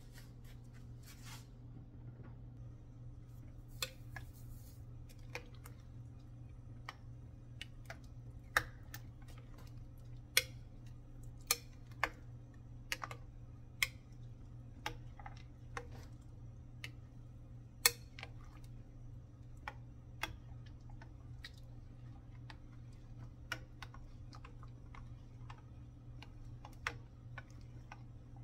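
A plastic rice paddle knocking and scraping against a glass pot while thick champorado (chocolate rice porridge) is stirred: irregular clicks about once a second, with a few sharper knocks in the middle. A steady low hum runs underneath.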